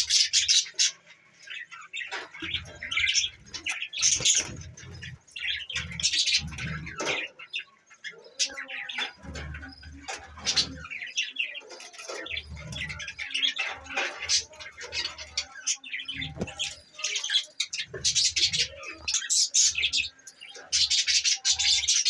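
A flock of budgerigars chattering and warbling with dense, rapid high chirps, louder again over the last few seconds. Short low rumbles come and go beneath the chatter.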